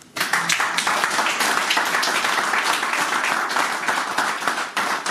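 Small audience applauding, starting suddenly just after the start and going on steadily as a dense patter of hand claps.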